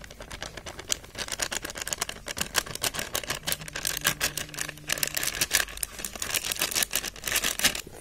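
Crinkling and crackling of a packet of bajji flour mix as it is squeezed and shaken to tip the flour into a steel bowl. The crackles come quickly, one after another, with the densest stretch in the middle.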